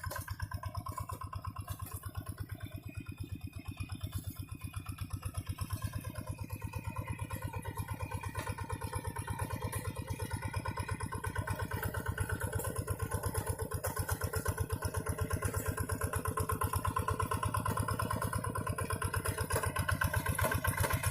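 Quick two-wheel hand tractor's single-cylinder diesel engine running with a fast, even beat while ploughing a field, growing gradually louder toward the end.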